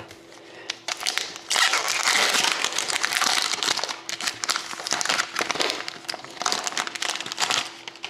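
Foil wrapper of an Upper Deck Artifacts hockey card pack being torn open and peeled back, a dense crinkling and crackling from about a second in. It is loudest for the first couple of seconds and eases off near the end.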